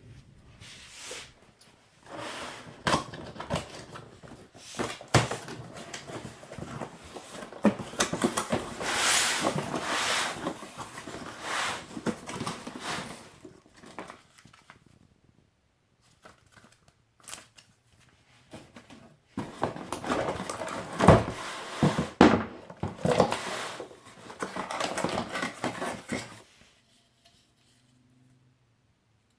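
Cardboard box and packaging being opened and handled: rustling and scraping with sharp knocks and clicks, in two long spells with a short lull between them.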